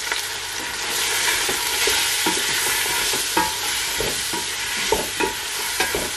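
Tomato, onion and spice masala sizzling in oil in a stainless steel pot while a wooden spatula stirs it, scraping and knocking against the pot every so often.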